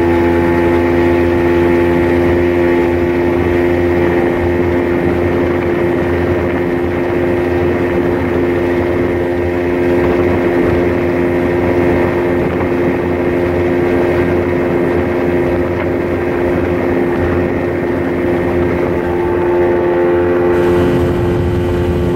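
Outboard motor of a small Spitfire speedboat running at a steady cruising speed, a constant drone that holds one pitch throughout.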